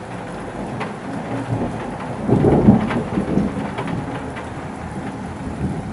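Steady rain falling with thunder rumbling: the rumble swells about two seconds in, is loudest for about a second, then fades back into the rain. A few drops tap sharply close by.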